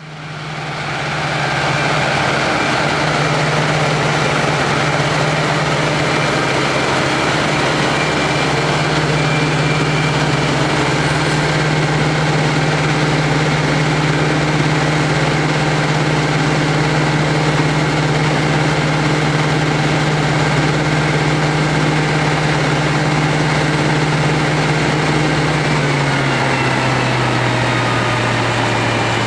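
Heavy diesel farm machinery running steadily at a constant engine note; the note drops slightly near the end.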